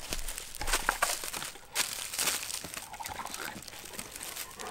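Knife blade prying and scraping at the cut lid of a metal chili can: scattered clicks and scrapes with no steady sound.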